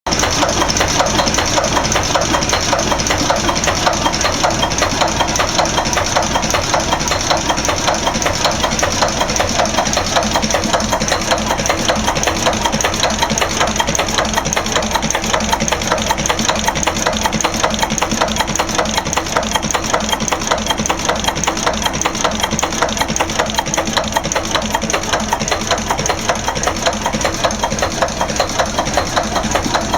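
1928 Jastram KRG 3 marine engine running steadily with an even, rapid firing beat, on its first run after restoration.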